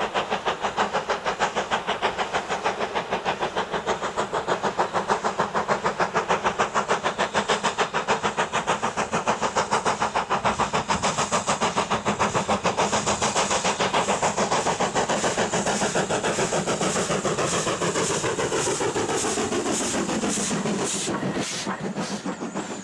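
BR Standard Class 4MT 2-6-4 tank locomotive No. 80072 working a train: rapid, even exhaust beats from the chimney, growing louder as it approaches and dropping in pitch as it passes near the end. The coaches' wheels then clatter over the rail joints.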